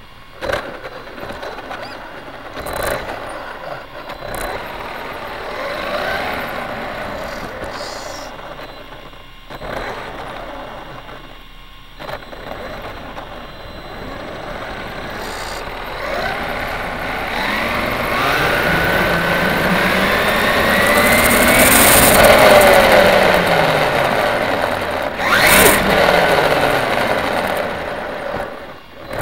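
RC car's motor whining as it drives, rising steadily in pitch through the second half as it speeds up and then falling away, with a few sharp knocks along the way.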